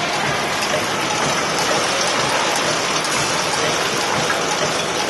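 Stainless-steel conveyor machine with freshly replaced bearings running at full speed, a loud, steady, dense mechanical noise with no clear rhythm.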